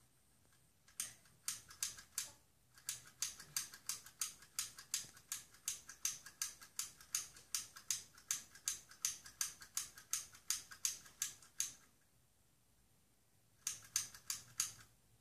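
A small plastic toy worked by hand, clicking sharply over and over at about three to four clicks a second. The clicking stops for a couple of seconds and then starts again near the end.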